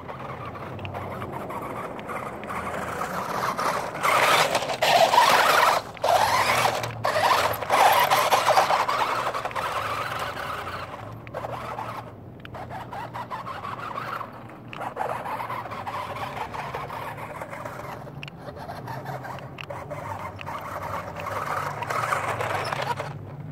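RC monster truck's motor and drivetrain whining and its tyres scrabbling over loose dirt and gravel, coming in bursts that cut off suddenly as the throttle is let off and picked up again. The sound is loudest in the first half and swells again near the end as the truck comes close.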